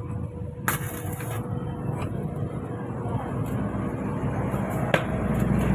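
Low rumble of a running vehicle engine that grows louder toward the end, with a brief high hiss under a second in and a single sharp click about five seconds in.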